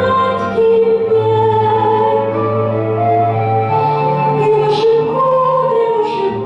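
A woman singing a slow Russian song in long held notes with vibrato over a recorded backing track with sustained bass notes.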